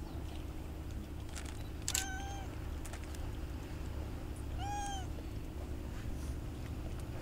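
Calico cat meowing twice, short calls about two seconds in and again near five seconds, begging for food.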